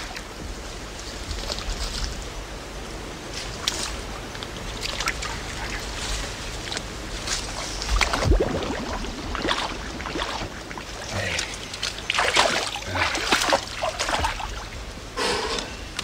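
Shallow creek water sloshing and splashing in irregular bursts as a man wades and stirs the muddy water with a stick, with the loudest splashes about halfway through and in the last few seconds.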